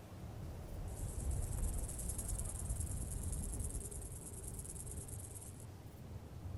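A high, dry buzzing trill begins about a second in and cuts off about five seconds later. It plays over a steady low rumble.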